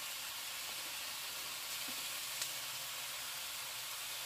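Chopped potato, carrot, zucchini and onion sautéing in oil in a pot, a steady sizzle. A single light tick about halfway through.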